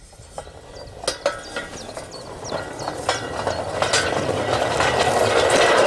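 Homemade steel railway wheels with tapered treads rolling along homemade flat steel-bar track, a rumbling roll with scattered clinks and knocks from wheels on rail. It grows steadily louder as the wagon comes closer.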